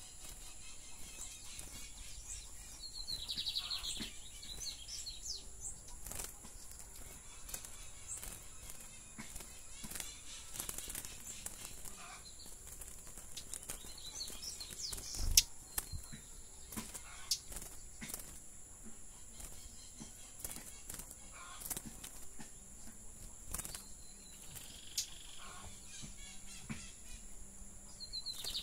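Caged male lined seedeater (bigodinho) singing short bursts of rapid, metallic twittering a few seconds apart, of the 'caça rato' song type, with wing flutters and sharp clicks as it hops about the cage.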